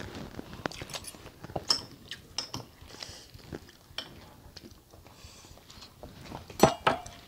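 Cutlery clinking and scraping against plates during a meal, in scattered short taps, with one louder clink near the end.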